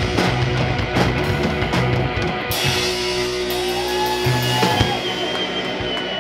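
Live instrumental rock played by electric guitar, bass guitar and drum kit. About halfway through the cymbals and most drum hits stop, and the guitars ring on with held notes and a high sustained tone.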